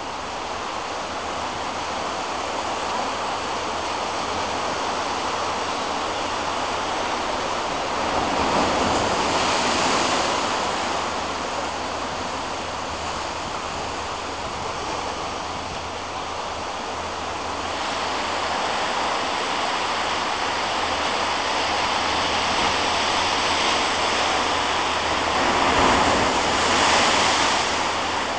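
Ocean surf rushing and washing against the rocks of a narrow sea inlet. It swells louder about eight seconds in and again near the end as waves surge in.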